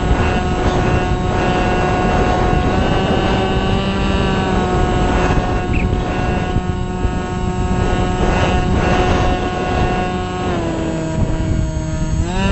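Small RC plane's electric motor and propeller whining steadily in flight, with heavy wind buffeting on the onboard camera's microphone. About ten and a half seconds in the pitch drops as the throttle eases, then rises sharply again near the end.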